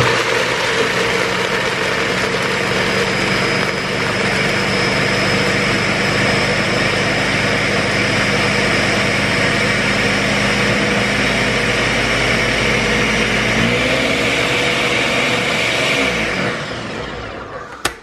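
Ninja countertop blender running at full speed, its blades grinding dry-roasted peanuts into a crumbly meal for peanut butter. A loud, steady motor hum under the grinding, which winds down over the last couple of seconds as the blender stops.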